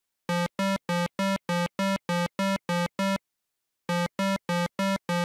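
Synthesized electronic music: one buzzy note pulsed in short, evenly spaced beeps, about three a second. A run of ten, a brief break, then the beeps start again.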